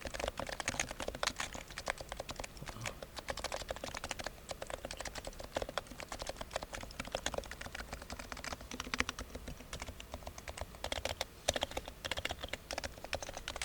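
Fast continuous typing on a Topre Realforce GX1 Plus keyboard with capacitive switches. The keystrokes are quite quiet, soft and rapid.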